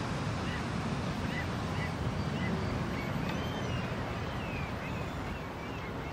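Steady outdoor wind and water noise with scattered short bird calls, more of them from about three seconds in.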